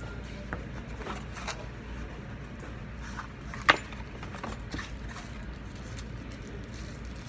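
Scattered light clicks and taps over a steady low hum, with one sharp click about three and a half seconds in.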